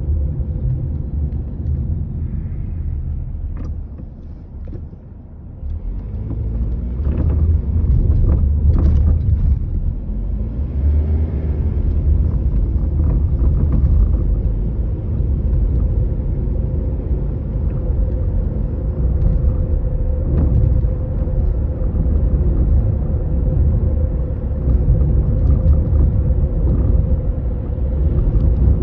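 Toyota Estima ACR55W running with a low rumble and a few knocks, clustered about 7 to 9 seconds in. This is the abnormal noise of a loosened steering intermediate shaft No.2.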